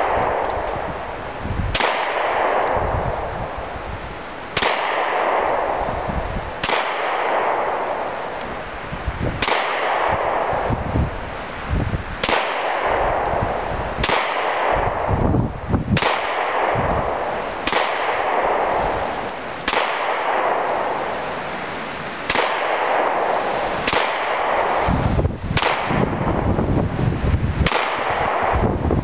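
FN FNX-45 pistol firing .45 ACP handloads with lead bullets in slow, steady fire: about a dozen shots, roughly one every two seconds. Each shot trails off over a second or more.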